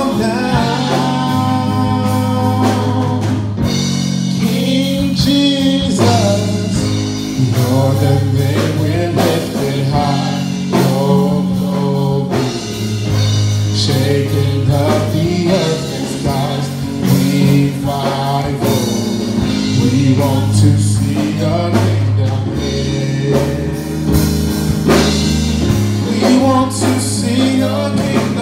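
Live gospel worship song: a small vocal group of two women and a man singing together into microphones, over sustained bass and keyboard chords, with drums.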